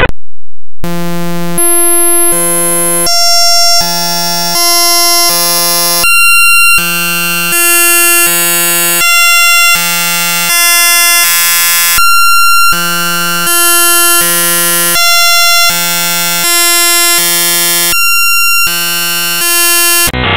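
A loud sequence of buzzy, synthesized electronic tones starts after a brief gap, with a new note about every three-quarters of a second, alternating low and high notes in a repeating pattern.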